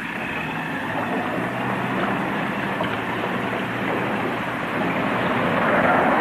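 Military truck engines running as the vehicles pull in, a steady drone that grows louder toward the end.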